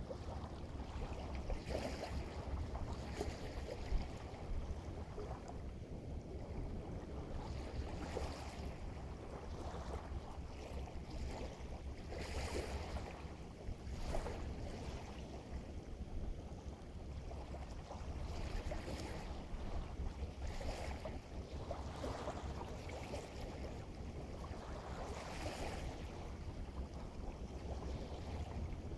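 Small waves washing in and out, coming as swells of hiss every couple of seconds, over a steady low rumble of wind on the microphone.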